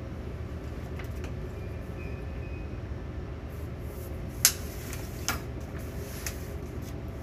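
Steady low hum of ship's machinery on the bridge, with a few sharp clicks and taps of chart-plotting instruments on the chart table. The loudest tap comes about four and a half seconds in, with smaller ones after it.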